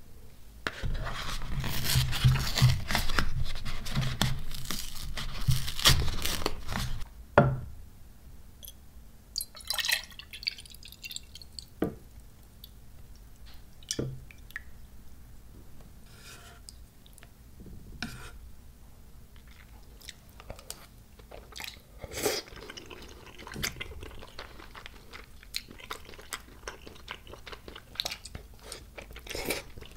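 A carton of Coolpis fruit drink shaken hard for about six seconds, the liquid sloshing inside, ending in a sharp click. Later the drink is poured into a glass mug among scattered small taps, and chewing of spicy rice cakes follows near the end.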